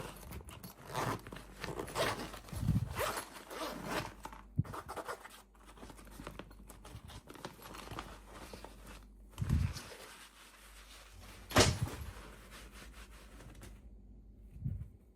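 Packaging being handled and opened by hand, a dense, irregular crackling and rustling with a few soft knocks, the sharpest about two-thirds of the way through.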